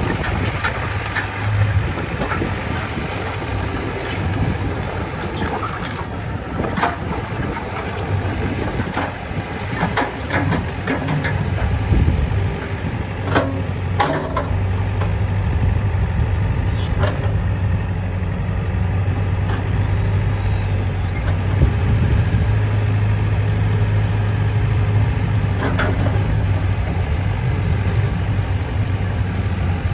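Hyundai R145LCR-9A hydraulic excavator's diesel engine running under working load as the boom, arm and bucket are moved and the upper structure slews. The engine's steady drone strengthens about halfway through, and sharp clanks from the bucket and linkage come now and then, most of them in the first half.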